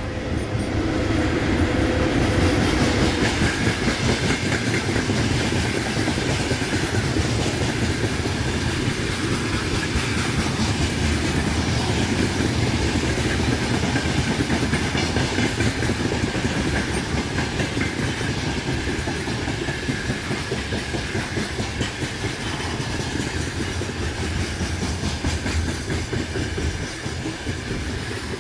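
Freight train passing close: an electric locomotive goes by in the first few seconds, then a long string of covered hopper wagons rolls past with a steady rumble of wheels and clickety-clack over the rail joints.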